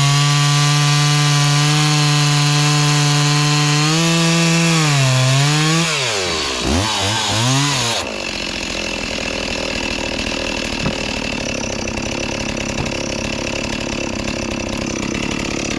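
Two-stroke chainsaw cutting through a log at high revs with a steady pitch. About four seconds in the pitch wavers and dips sharply as the saw bogs down under load. From about eight seconds in it runs on with a rougher, noisier sound.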